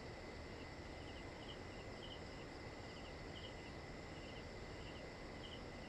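Faint, regular high chirping from an insect, a little under two chirps a second, over a steady high tone and a low hiss.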